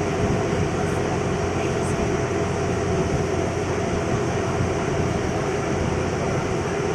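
Motorboat engine running steadily, an even low drone with a constant hum.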